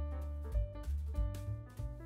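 Background music for the outro: a bass line and sustained chords over a steady beat.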